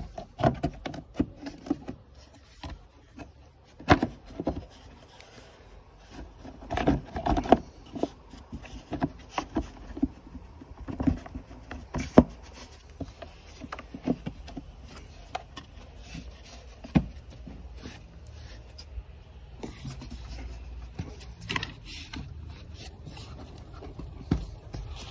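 Plastic air filter housing lid on a Ford Focus 1.0 EcoBoost being pressed and wiggled onto the housing so its edge seats in the groove: irregular clicks and knocks of plastic with rubbing and scraping between them.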